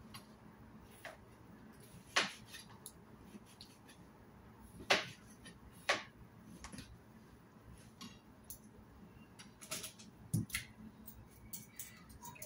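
Kitchen knives tapping and clicking on plastic cutting boards as a vegetable and pork are sliced: scattered sharp taps at irregular gaps of a second or more, coming more often near the end.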